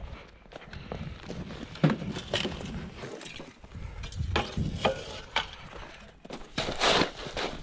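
Boots crunching on packed snow while a snow shovel is picked up and handled: a scatter of irregular crunches, scrapes and knocks, the sharpest one about two seconds in.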